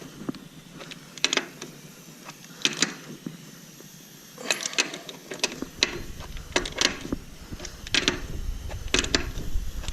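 Lug nuts on a skid loader wheel being tightened by hand with a wrench: scattered short metallic clicks and clatters at irregular intervals. A low rumble joins about halfway through.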